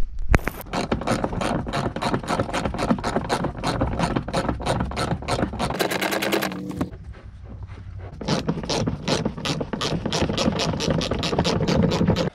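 Ratchet wrench clicking in quick, even strokes, about six clicks a second, as a bolt is worked loose in a car floor. There is a faster run of clicks about six seconds in and a short pause after it.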